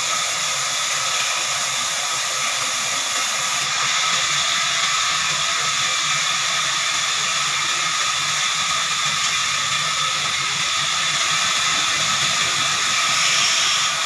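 Horizontal band sawmill running, a steady high-pitched hiss with a few steady whining tones over it.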